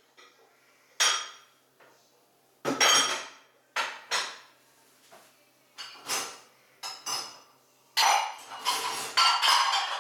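Irregular sharp clinks and clatters of hard objects, a dozen or so, each ringing briefly, bunching together near the end.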